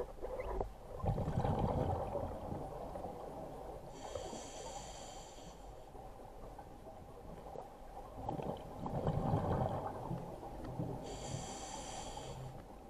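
Scuba diver breathing through a regulator underwater. Two long exhalations of bubbling air, about a second in and again around eight and a half seconds, are each followed by a short hissing inhalation through the demand valve.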